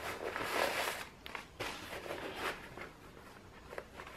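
Soft rustling and scuffing of a Nike Air VaporMax trainer's knit upper and laces being handled and turned over in the hands, in several short irregular bursts.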